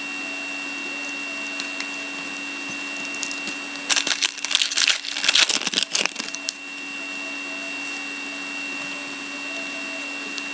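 Trading-card foil pack and cards being handled, a crackling rustle lasting about two and a half seconds in the middle, over a steady electrical hum.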